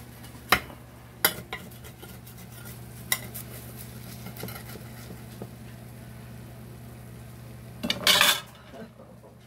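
Metal serving spoon clinking and scraping against a ceramic baking dish while casserole is scooped out: a few sharp clinks in the first three seconds, a louder half-second noise about eight seconds in, over a steady low hum.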